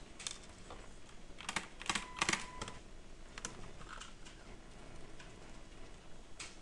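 Computer keyboard typing: a few scattered keystrokes, with a quick run of keys about one and a half to three seconds in while a string of digits is entered.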